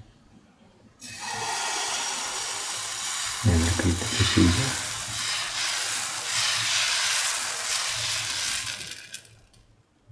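Semolina pancake (rava dosa) batter sizzling on a hot oiled pan as a ladleful is poured in and spread; the sizzle starts suddenly about a second in and dies away near the end. A brief low sound comes about three and a half seconds in.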